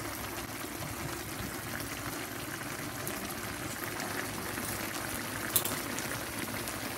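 Escabeche sauce simmering in a frying pan, a steady bubbling hiss. A single sharp click about five and a half seconds in.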